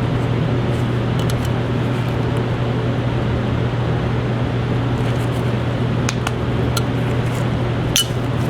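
A steady fan-like hum runs throughout, with a few small metallic clicks from a derringer's small bolts and an Allen key being worked by hand, the sharpest clink near the end.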